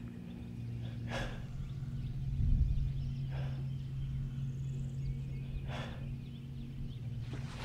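A man breathing out heavily three times, about two seconds apart, over a steady low hum.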